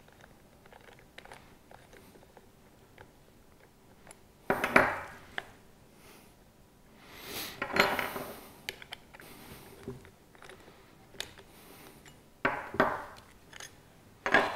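Keyed drill chuck being tightened with its metal chuck key: small metallic clicks and clinks, with three louder clattering knocks as the drill and key are handled and set down on a wooden workbench.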